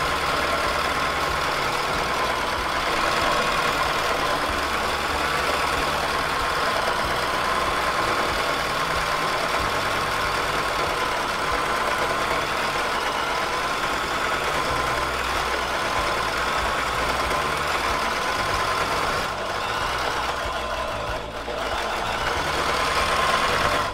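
Consew 206RL walking-foot sewing machine running steadily as it stitches through layered strapping, with a steady motor whine; it stops right at the end.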